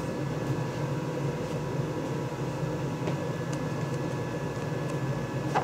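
Steady machine hum, with a few faint clicks and a sharper click near the end.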